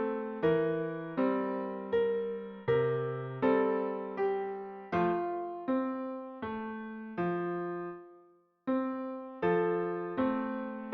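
Background piano music: gentle chords struck about every three quarters of a second, each ringing and fading, with a short silent pause about eight seconds in before the playing resumes.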